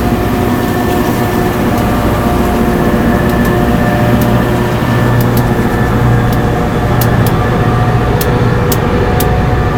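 Harsco rail grinder train running, a loud, steady mechanical drone with several held tones over a deep rumble. Scattered sharp ticks come in, more often in the second half.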